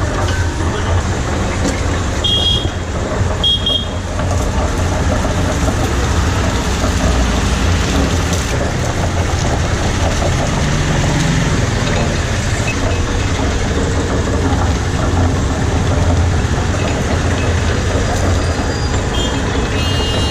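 Steady low motor rumble with street noise, broken by two short high tones about two and three and a half seconds in.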